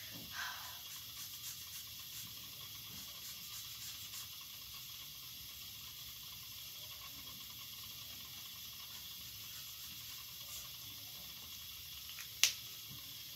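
Bianyo marker tip scratching faintly over sketchbook paper against a steady hiss, with one sharp click near the end as the marker cap snaps on or off.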